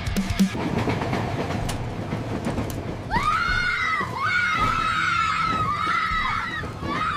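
Train rumbling along the rails with scattered clicks. About three seconds in, a loud high-pitched wail starts and holds with several short dips in pitch.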